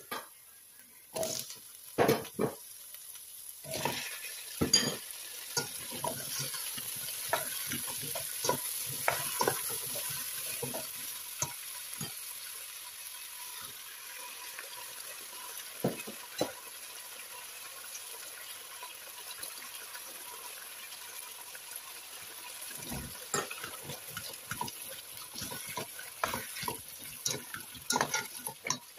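A plastic spatula stirring and knocking irregularly against a stainless steel pot, over vegetables sizzling in hot oil. The knocks come thickly in the first dozen seconds and again near the end, with steadier sizzling between.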